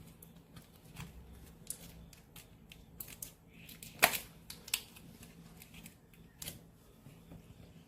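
Scattered clicks, taps and light rustles of a slime kit's plastic packaging and packets being handled and opened, the sharpest click about four seconds in.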